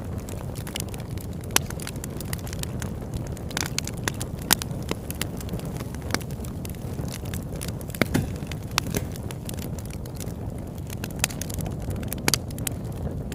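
Campfire burning: a steady low rush with irregular sharp crackles and snaps, a few of them louder pops.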